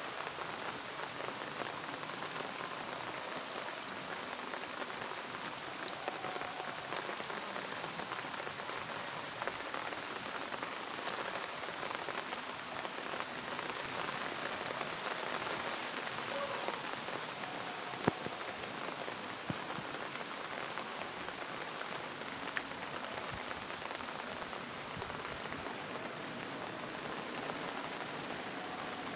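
Steady rain falling on garden foliage and paving, an even hiss with a few sharp taps scattered through it.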